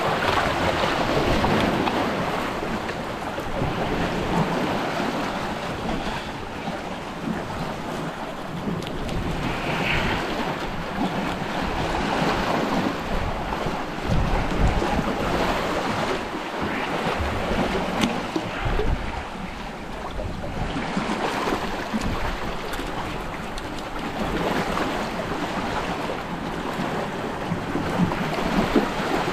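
Sea water washing and lapping against shoreline rocks, with wind blowing across the microphone.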